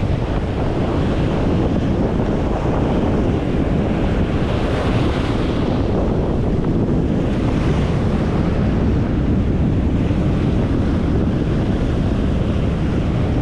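Strong storm wind buffeting the microphone over the steady rush of surf breaking on the beach, with a few swells as waves come in.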